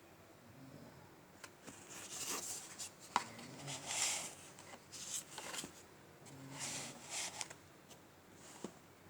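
Chunks of dry multani mitti (Fuller's earth clay) being bitten and chewed close up, with short, crisp crunches about once a second and a few sharp cracks.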